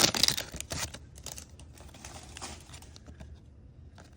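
Plastic trading-card pack wrapper crinkling for about the first second, then fading to the soft ticks and rustle of a stack of baseball cards being handled and flipped through.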